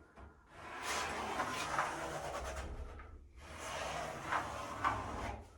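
Pencil being drawn along timber, marking a line on the door frame around the edge of the door, in two long scratchy strokes with a short break between them.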